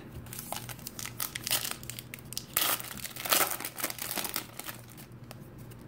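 A trading-card pack wrapper being torn open and crinkled by hand: a run of sharp crackles, loudest in the middle, thinning out near the end.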